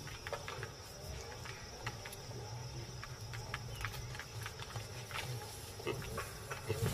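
Baboons giving low, intermittent grunts, over a steady high insect chirring, with scattered light clicks.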